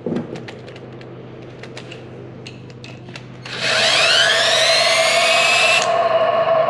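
Small handling clicks, then about three and a half seconds in a Metabo cordless drill-driver starts spinning the rotor of a removed Hyundai Ioniq electric drive motor through its hex plug. The whine rises in pitch as it speeds up, then settles to a steady hum. The noise is clearly heard from that end of the motor, which confirms the mechanic's suspicion of a noisy rotor bearing.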